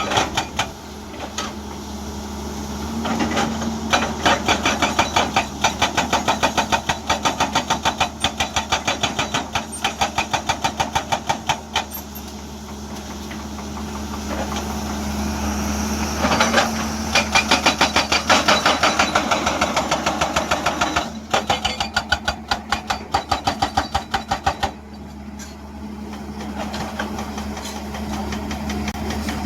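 Hydraulic breaker hammer on a Hyundai excavator pounding rock in bursts of rapid, evenly spaced blows lasting several seconds each, with the excavator's diesel engine running steadily in the pauses between bursts.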